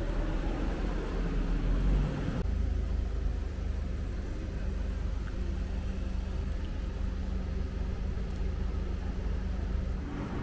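A vehicle's engine running with a steady low hum. For the first couple of seconds there is broader traffic noise, which changes abruptly to the even hum.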